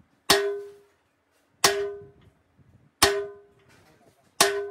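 Sledgehammer striking a handled steel set tool held against a heavy truck's steel axle housing: four ringing metal-on-metal clangs about a second and a half apart, each dying away quickly.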